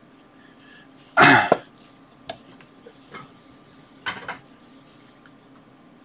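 A man coughing: one loud cough about a second in, then a weaker double cough about four seconds in.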